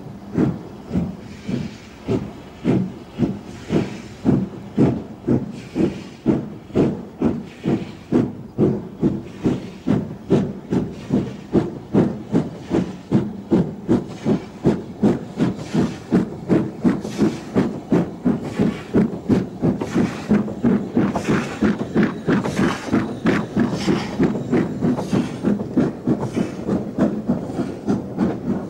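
Exhaust beats of an LMS Stanier 8F two-cylinder 2-8-0 steam locomotive getting a train under way, with steam hissing. The beats come about once a second at first and quicken steadily as the engine gathers speed.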